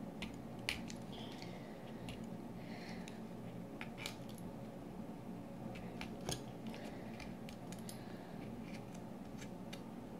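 Irregular light clicks and scrapes of sidewalk chalk and hard tools against a bowl as blue chalk colouring is added to glue, over a steady low hum.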